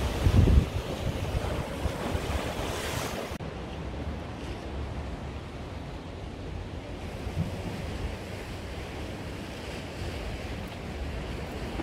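Sea waves breaking and washing against a rocky shore, with wind buffeting the microphone in the first few seconds. About three seconds in the sound drops abruptly to a quieter, steady wash of surf.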